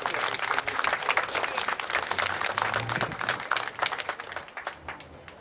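Audience applauding: many hands clapping, thinning out and fading away near the end.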